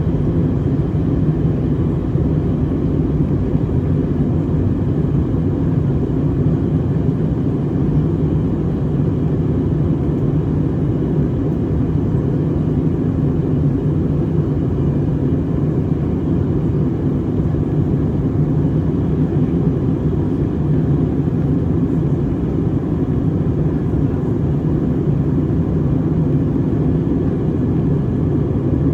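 Steady cabin noise of a jet airliner in flight: an even, low rumble of engines and airflow heard from inside the passenger cabin.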